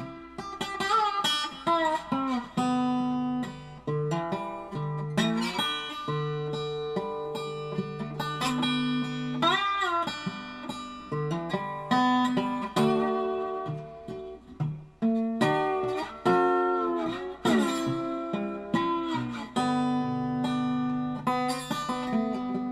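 Background music: an acoustic guitar instrumental, plucked notes with bent, sliding pitches.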